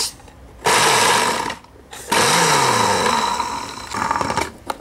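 Countertop blender run in short pulses, grinding dry María biscuits into crumbs: twice loudly, for about a second and then about two seconds, and once more weakly near the end. The motor's pitch rises and falls within each run.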